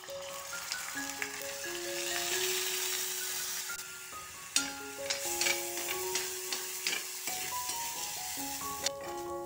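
Wet washed red rice sizzling as it goes into hot ghee in a metal pan, then stirred with a steel spoon that scrapes and clicks against the pan from about halfway through. Light background music with a simple melody plays over it.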